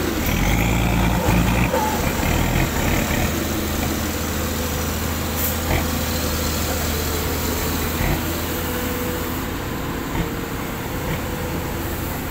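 Diesel engine of a loaded six-wheel dump truck running at low speed as it pulls through soft mud, a steady low drone that is a little louder in the first couple of seconds.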